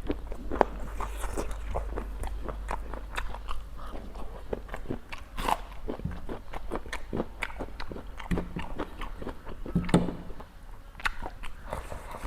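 A person biting and chewing crunchy food, a steady run of irregular crisp crunches and clicks.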